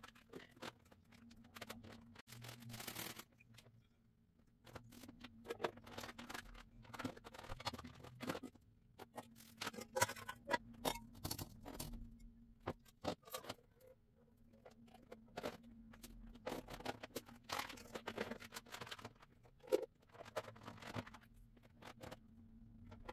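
Plastic food-storage bowls and lids being handled and sorted: irregular light clicks, knocks and scrapes as lids are picked up, matched and set down, over a faint steady hum.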